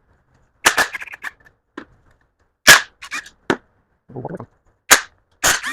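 Sharp metal clanks and clicks from hand tools and sockets working on the bolts of a Mazda B2200's oil pump, about nine separate hits, irregularly spaced.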